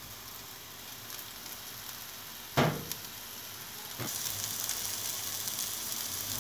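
Chopped onion sizzling as it fries in a little oil in a non-stick pan. There is a sharp knock about two and a half seconds in, and the sizzle grows louder from about four seconds.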